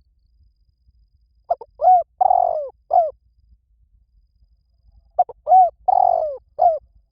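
Spotted dove cooing: two call phrases about three and a half seconds apart. Each phrase is a few short coos with one longer, drawn-out coo among them.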